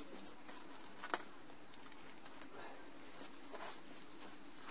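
Faint rustling and clicking of insulated cable and corrugated conduit being handled and dragged on plastic weed mat, with one sharp click about a second in.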